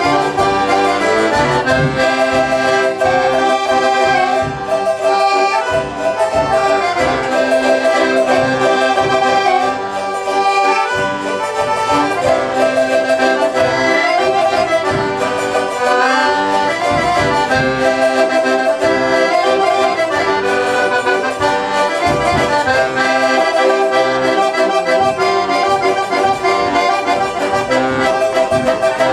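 An accordion playing a traditional folk tune, with steady held notes and a regular rhythm.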